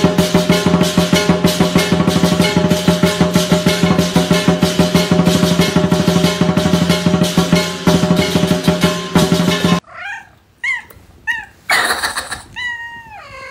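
Fast-beat background music, which stops about ten seconds in. A cat then gives about four short, sharp, falling yips that sound like barking, a brief noisy burst, and one longer wavering meow that falls in pitch near the end.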